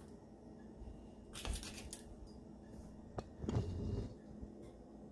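Kitchen oven door clicking and being pulled open: a sharp click about three seconds in, then a short low rumble as the door swings down, after a brief noise about a second and a half in.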